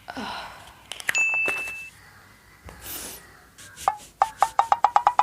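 Intro sound effects. A falling swoosh opens it, then a few bright glassy clinks come about a second in, one of them holding a high ding. Another swoosh follows, and near the end a quick run of short pops speeds up.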